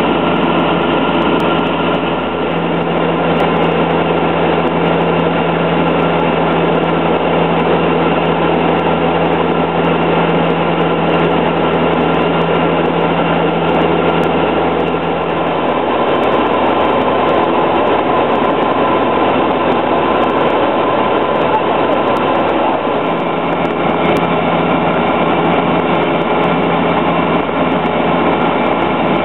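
Robin DR400 light aircraft's piston engine and propeller running steadily in flight, heard from inside the cabin. A low steady hum within the drone fades out about halfway through and comes back several seconds later.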